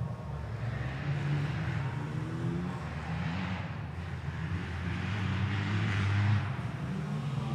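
Motorcycle engine running, its sound swelling and easing several times and loudest about six seconds in.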